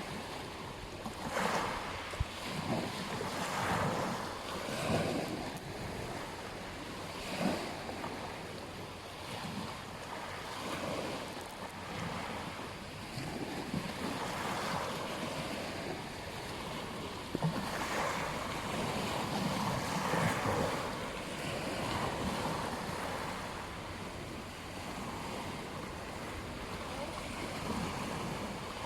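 Ocean surf breaking and washing up a beach, the hiss of the water rising and falling in uneven surges every few seconds.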